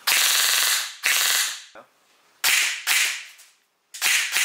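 High rate-of-fire M4-style airsoft electric gun (AEG) firing short full-auto bursts: about five rapid buzzing strings, each under a second, with brief pauses between them.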